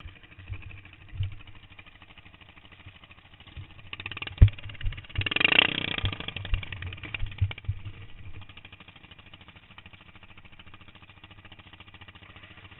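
Racing lawn mower engine running, louder and busier for a few seconds in the middle, with scattered low thumps.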